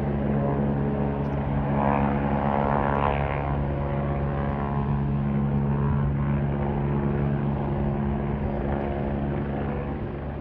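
Aircraft engine running steadily, a low drone with one even pitch that eases slightly near the end.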